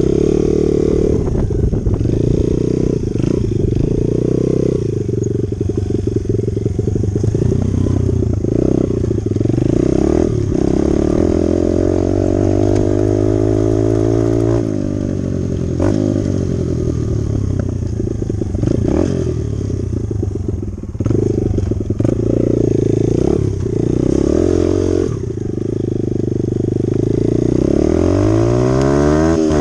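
Dirt bike engine running while being ridden, its revs rising and falling with the throttle and gear changes. There is a long climb in revs about a third of the way in and another near the end.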